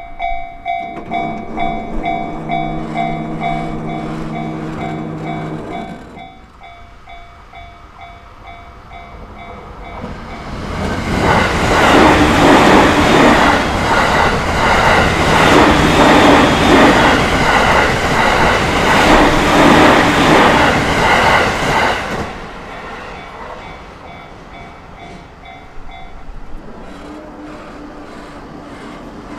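Japanese railway level-crossing alarm ringing in a steady run of repeated dings. A long horn blast sounds for several seconds near the start, then a JR Tohoku Main Line train passes for about ten seconds with wheels clattering over the rails, and the alarm stops a few seconds after it has gone.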